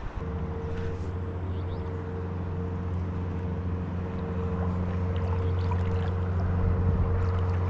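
Boat motor running at a steady pitch, a low hum that grows gradually louder.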